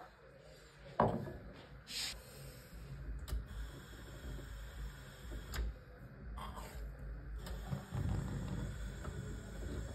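Clicks and knocks of handling at a gas stove, then a match struck about six seconds in, followed near the end by a low steady rush as the gas burner lights.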